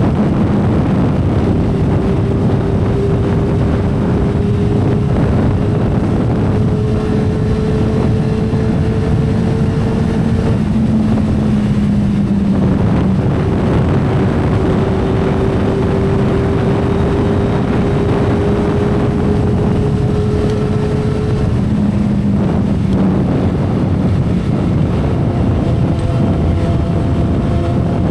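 2012 Kawasaki Ninja ZX-10R's inline-four engine running at cruising speed, buried in heavy wind rush. Its note climbs slowly, then drops back about a third of the way in and again about three quarters of the way in.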